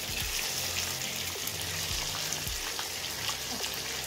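Marinated boal (wallago catfish) pieces shallow-frying in hot mustard oil in a kadai: a steady sizzle with a few faint ticks.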